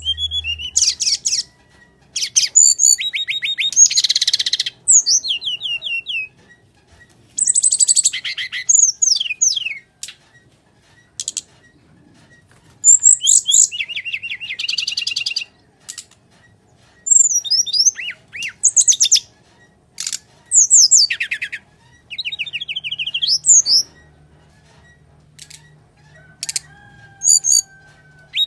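Brown-chested jungle flycatcher (sikatan rimba dada coklat) singing its full fighting song: quick, high-pitched phrases of varied notes and rapid trills, one after another with short pauses between them.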